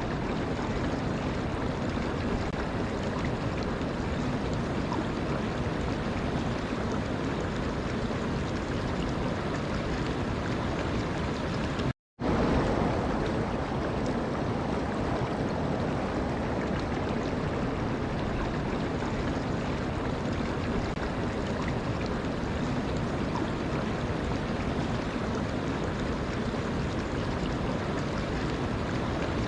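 Water rushing steadily, an even noise with no distinct splashes; it cuts out completely for a moment about twelve seconds in, then resumes.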